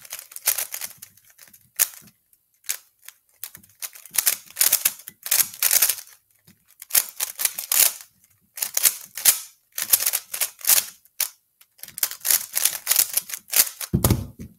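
A 3x3 Rubik's Cube being turned fast: runs of rapid plastic clicking from the layer turns, broken by short pauses. A low thud comes near the end.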